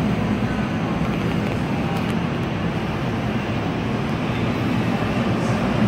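NJ Transit double-deck coaches rolling past alongside the platform: a steady rumble of wheels on rail with a steady low hum underneath.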